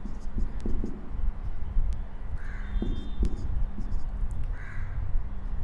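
A crow cawing twice, about two seconds apart, over a steady low rumble.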